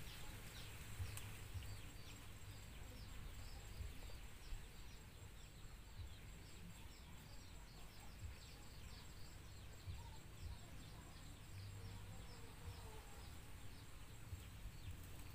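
Faint outdoor ambience: a steady run of short, high, falling chirps, several a second, over a low rumble.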